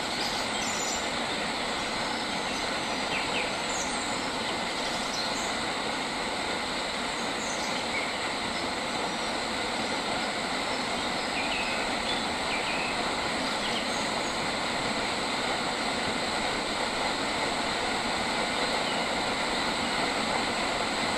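Steady outdoor nature ambience: a continuous high drone with a few short, faint bird chirps scattered through it.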